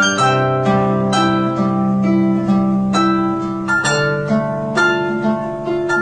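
Calm, relaxing background music of plucked string notes, harp-like, about two notes a second ringing over held low notes.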